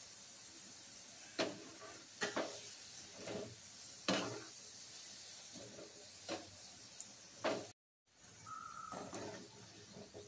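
Gulab jamun balls deep-frying in hot oil with a faint, steady sizzle. A ladle knocks against the frying pan several times as the balls are turned.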